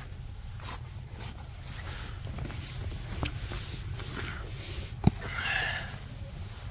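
Rustling and shuffling of a person moving about and handling things. About five seconds in comes a single sharp knock, the loudest sound, followed by a brief wavering squeak.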